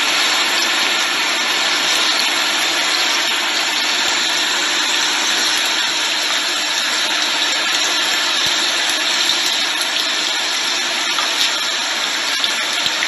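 Garlic, chili and ginger slices sizzling steadily in hot sesame oil in a frying pan as they brown, with a steady machine-like hum underneath.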